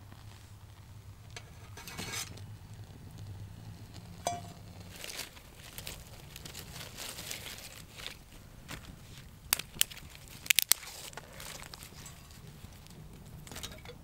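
Dry twigs rustling and cracking as they are fed by hand into a small wood fire burning in a folding metal box stove, with scattered crackles and a quick cluster of sharp snaps about ten seconds in.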